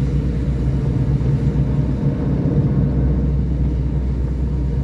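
Car driving on a wet road, heard from inside the cabin: a steady low rumble of engine and road noise.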